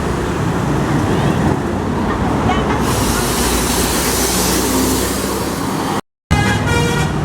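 Road traffic noise as a large vehicle passes close by, growing hissier about three seconds in. After a brief dropout near the end, a tour bus's multi-tone 'telolet' horn starts to play.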